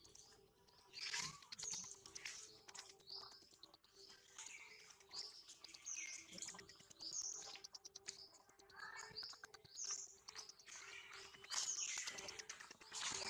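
Birds chirping: short high calls repeated about once a second, over a faint steady low hum.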